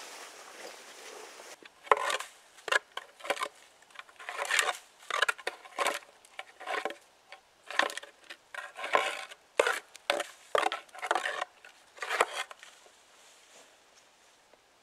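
Brush and branches crunching and rustling in irregular bursts as someone pushes through dense low shrubs and conifer boughs on foot, after a short steady hiss at the start.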